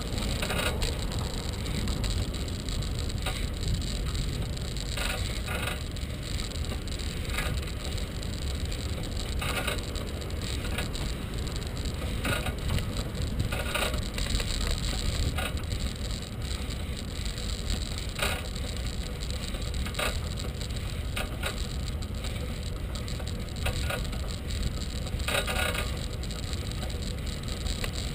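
Bicycle ride heard from a bike-mounted camera: a steady low rumble of wind on the microphone and tyres rolling on pavement, with brief rattles and knocks scattered through as the bike goes over bumps.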